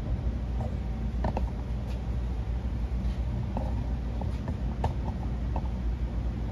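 Steady low background hum with a few faint, scattered clicks and taps.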